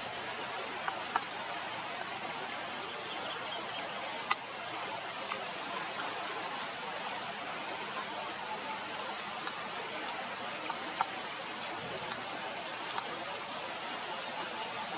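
A short, high chirp repeated steadily, about two to three times a second, starting about a second in, over a steady outdoor hiss. A few faint clicks and one sharp click about four seconds in.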